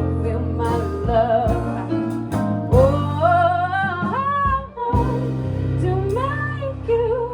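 Live band music with a singer holding long, wavering notes over bass and guitar.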